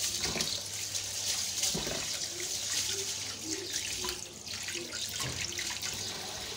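Rice being washed by hand in a bowl of water: hands swishing and rubbing the grains, water splashing, with a thin stream of tap water running into the bowl.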